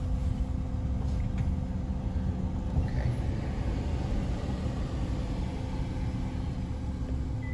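Nissan Sentra running, heard from inside the cabin as a steady low rumble.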